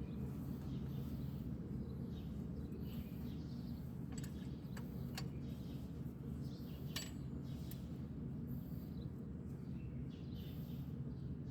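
Steady low hum, with a handful of sharp metallic clicks and taps about four to eight seconds in, and faint bird chirps.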